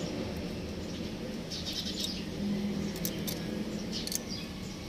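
Birds chirping in the background: a few short high chirps over a low steady hum.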